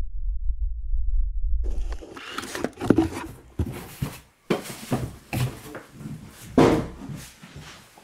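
A deep low drone under the title, then a run of handling noises: rustling, scraping and knocks as a box is opened and handled, with several sharper knocks among them.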